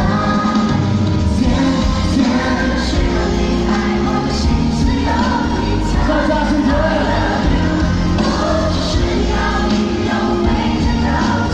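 Live pop concert music: a band playing with a sung vocal line over it, at a steady loud level.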